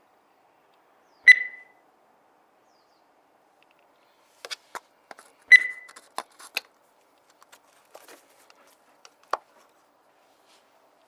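Two sharp metallic clinks that ring briefly, about four seconds apart, with a scatter of lighter clicks and taps between them and after, as of metal tools and parts being handled.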